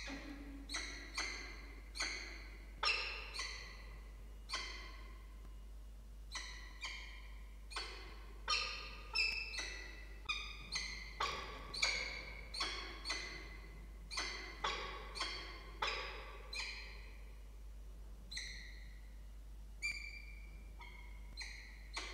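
Peregrine falcons giving a long series of short, sharp calls, one or two a second in uneven runs with brief pauses.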